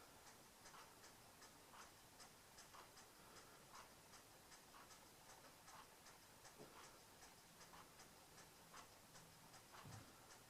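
Faint, regular ticking, about one tick a second, over a quiet background, with fainter, quicker high-pitched ticks alongside. A soft low thump comes near the end.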